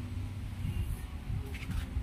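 Light handling noise from hands moving small engine parts and a shop rag on the workbench, a brief rustle about a second and a half in, over a steady low rumble.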